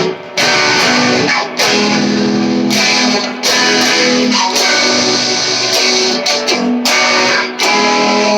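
Electric guitar played on its bridge pickup through a small all-tube amp: a run of chords, each ringing for a second or so before a brief stop.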